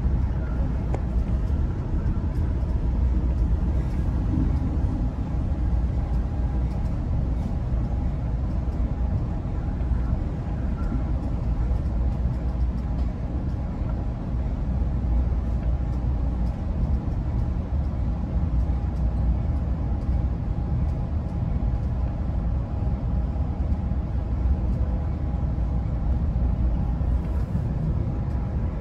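Steady low rumble of an Amtrak Pacific Surfliner bi-level passenger coach rolling along the track, heard from inside the car, with a faint steady tone running over it.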